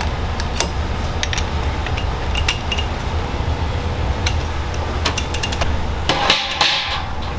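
Commercial kitchen clatter: metal utensils and containers knocking and clinking against one another over a steady low hum, with a short hiss about six seconds in.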